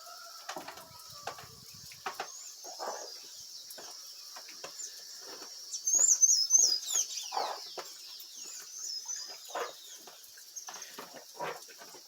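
Farmyard birds chirping, loudest in a quick run of high chirps about six seconds in, over a steady high hiss and scattered short knocks and clucks.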